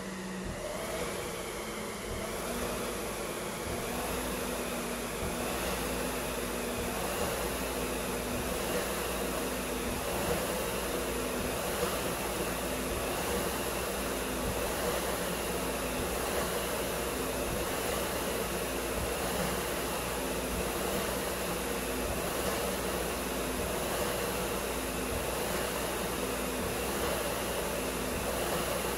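Concept2 SkiErg's fan flywheel whirring steadily, surging with each double-arm pull in an even rhythm a little under one stroke a second.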